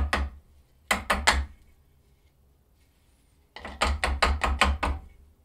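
Quick runs of sharp knocks as an aluminum two-stroke engine case is rapped to shake metal chips out of a freshly tapped stud hole: a few at the start, four about a second in, then about eight in a row near the end.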